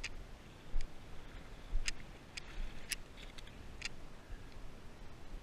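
Scattered sharp clicks, about seven in all, the loudest about one and two seconds in, over a low steady rumble of wind on the microphone.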